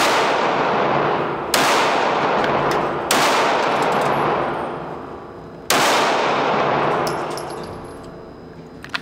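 Four gunshots at an indoor shooting range: three about a second and a half apart, then a fourth after a longer pause. Each is followed by a long echoing decay in the range lane.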